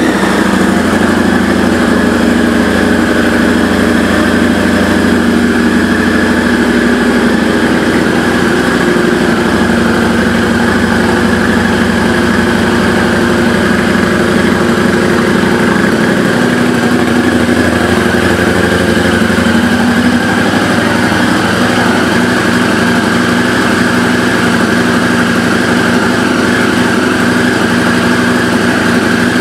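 2013 Harley-Davidson Night Rod Special's liquid-cooled Revolution V-twin, fitted with a Vance & Hines exhaust, idling steadily just after being started. The idle shifts slightly about seven seconds in and again about sixteen seconds in.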